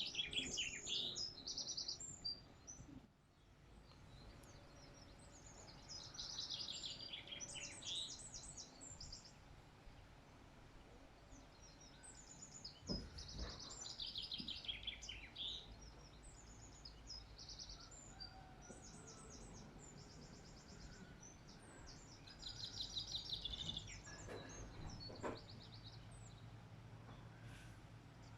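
Songbirds chirping and singing in bursts of quick, high, rapidly repeated notes every several seconds, over a steady low rumble of background noise.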